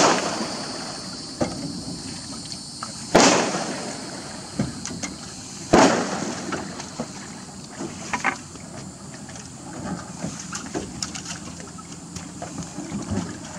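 A few loud thumps and knocks, a couple of seconds apart, as a homemade 55-gallon-drum pontoon boat is shoved off a submerged metal boat trailer into the water.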